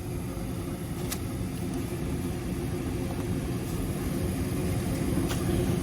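80% gas furnace running, its burners lit and its circulating blower fan on, giving a steady hum. A faint click comes about a second in.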